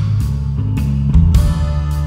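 Instrumental background music with a bass line and a steady beat of cymbal-like hits.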